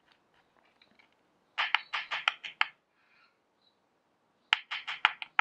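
Two quick runs of light, rapid clicking taps, about seven in a second: a freshly salt-filled SHRED-ER cartridge being tapped against a small tub to knock off the excess salt.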